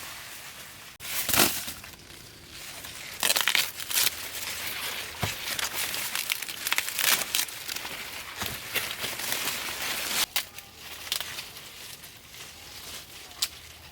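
Irregular crinkling and rustling of something being handled, broken by a few sharp cracks or snaps, the loudest about a second and a half in.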